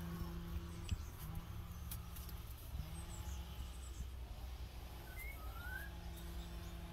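A steady low hum that drops out briefly a few times, with a short rising bird chirp about five seconds in.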